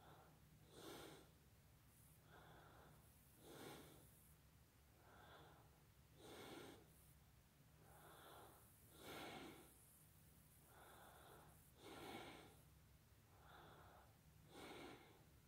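Faint, slow, even breathing close to the microphone, a stronger breath about every three seconds with a softer one between each, over a low steady hum.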